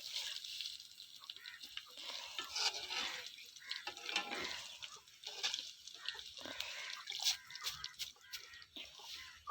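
Curry leaves deep-frying in hot oil, sizzling with irregular small crackles and pops as their moisture cooks out.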